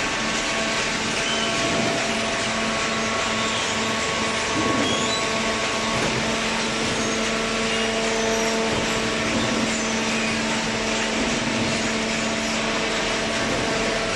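Steady hum of running machinery: an even noise with several steady tones over it, unchanging throughout.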